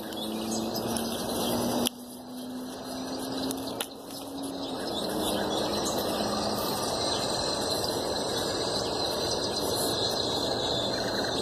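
Outdoor backyard ambience: a steady rushing background noise with a low hum that rises slowly in pitch and fades out about halfway through, under a steady high insect-like trill and a few faint bird chirps. The sound cuts abruptly twice in the first four seconds.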